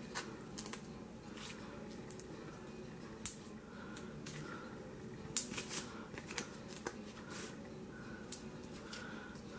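Small cardstock pieces handled and foam adhesive dots pressed onto their backs: scattered light clicks and taps with soft paper rustling, the sharpest click about three seconds in and a cluster a little after five seconds.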